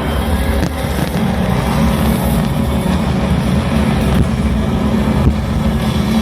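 Loud, steady, low rumble of spacecraft-battle sound effects played over an outdoor PA system, engine-like rather than musical, with a few faint sharp bangs, the clearest about five seconds in.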